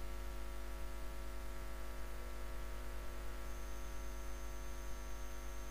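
Steady electrical mains hum with a faint hiss, and a faint high whine joining about halfway through.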